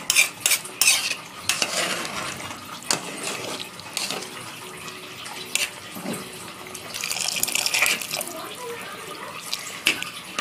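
A spoon stirring rice and lentils in hot water in a saucepan: repeated clicks and scrapes of the spoon against the pot, with water sloshing and swishing, busiest about seven to eight seconds in.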